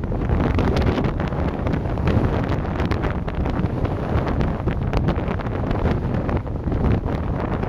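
Storm-force wind buffeting the microphone, a heavy low rumble that surges and dips with the gusts.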